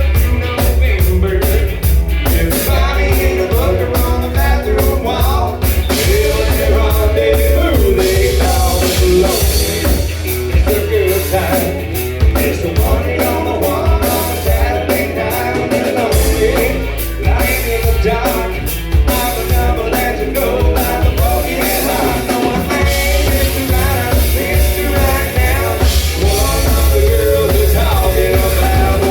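Rock music: a band playing with drum kit and strong bass, with a voice singing over it.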